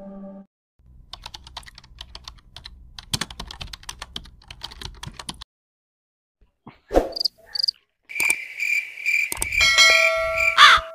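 A few seconds of quick, light clicking over a low hum, like rapid typing. It stops suddenly and is followed by a pulsing high chirp, then a harsh bird call near the end.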